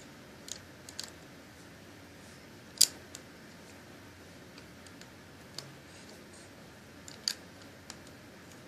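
LEGO bricks being handled and pressed together on a model, giving about seven sharp plastic clicks at uneven intervals over a faint steady hiss, the loudest about three seconds in and another strong one near the end.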